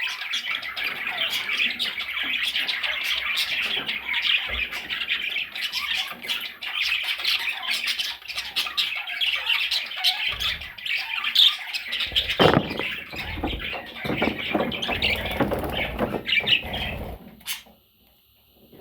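Budgerigars chattering and squawking in a busy, continuous stream, with heavier, lower sounds mixed in during the second half. The chatter stops abruptly near the end.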